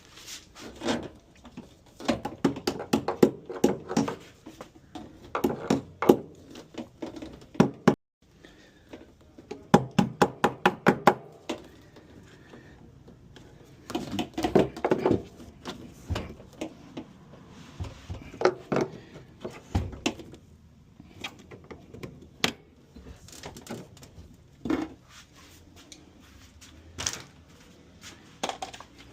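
Bursts of rapid metallic knocks and clatter, several strikes a second with pauses between, then scattered single knocks, from work on a washing machine's drum and bearing assembly.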